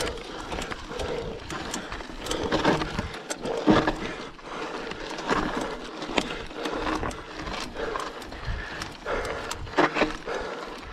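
Mountain bike being ridden over a rough dirt trail: irregular knocks and rattles about once a second, with wind buffeting the microphone.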